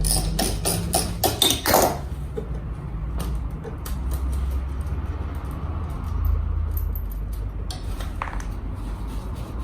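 Metal clicks and clinks from handling tools and parts, bunched in the first two seconds, then a steady low hum with a few scattered light knocks.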